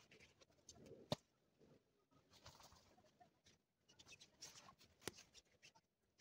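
Faint rustling and scattered light clicks of tent fabric and bags being handled on grass, with two sharper ticks, about a second in and about five seconds in.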